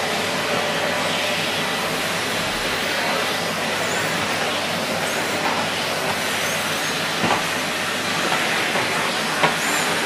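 Numatic Henry 160 cylinder vacuum cleaner running steadily, a constant rushing hiss of its motor and suction as the floor tool is worked over carpet. Two short knocks stand out, about seven seconds in and near the end.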